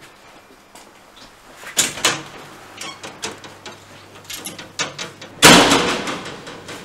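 A metal-framed glass-panelled door being pushed open: a knock about two seconds in, then a loud bang about five and a half seconds in that dies away over about a second as the door swings shut.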